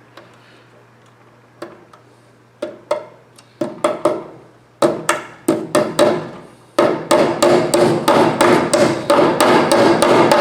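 Hammer driving cable staples over electrical cable: a few scattered taps at first, then a run of quicker blows, about four a second, in the last few seconds, each with a short ring.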